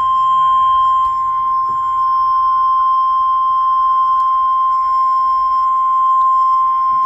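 NOAA Weather Radio warning alarm tone: one loud, steady, unbroken tone at about 1050 Hz, the signal that an urgent warning, here a tornado warning, is about to be broadcast.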